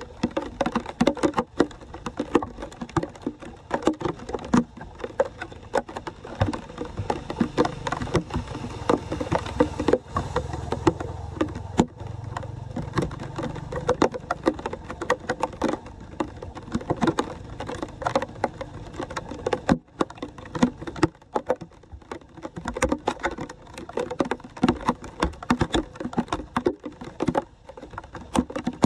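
Shallow floodwater splashing and pattering as hands scoop wet leaves and debris off a clogged street drain grate, in a dense run of sharp splashes and drips. A low rumble sits under the middle stretch.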